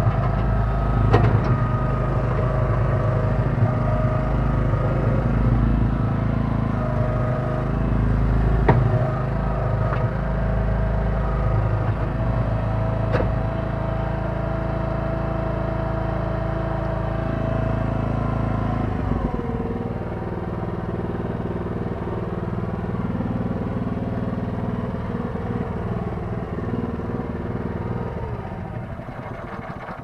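Kellfri mini backhoe's engine running under hydraulic load with a steady whine, as the boom and bucket are worked, with a few sharp clanks. About two-thirds of the way through, the engine speed drops and it runs on more slowly.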